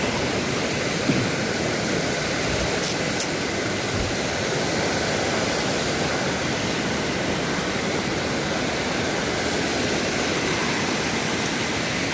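A waterfall's falling water rushing, as a dense, even hiss that stays steady throughout.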